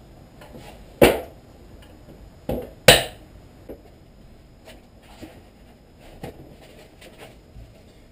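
Hard objects being handled and knocked together: three sharp knocks, about a second, two and a half and three seconds in, with lighter clicks and taps between them.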